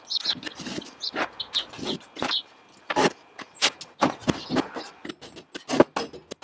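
Irregular sharp knocks and clacks as a wooden box, tools and a hammer are handled on a workbench, about one or two a second.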